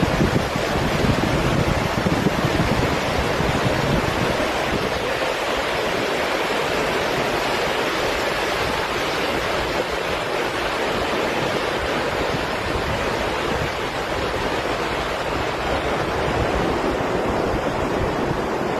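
Ocean surf washing onto a beach: a steady rushing hiss of breaking waves. Wind rumbles on the microphone, strongest in the first few seconds.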